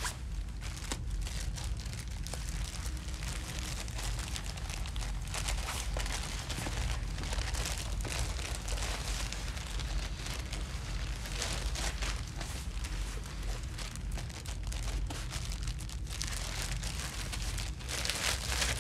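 Continuous crinkling and rustling, like paper or a wrapper being handled, over a low steady hum, a little louder near the end.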